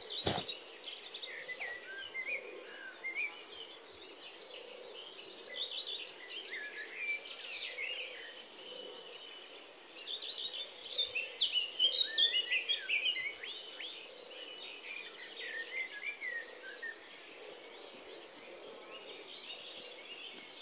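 Tropical forest ambience: a steady high insect drone with many birds calling over it, the bird calls busiest about halfway through. A sharp click right at the start.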